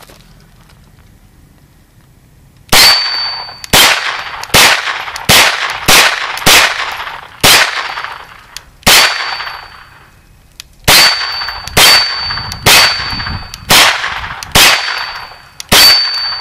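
A Kel-Tec Sub2000 Gen 2 9mm carbine fired semi-automatically fourteen times at an uneven pace, starting about three seconds in. Each shot is a sharp crack with a short tail, and a thin high ring hangs after several of them.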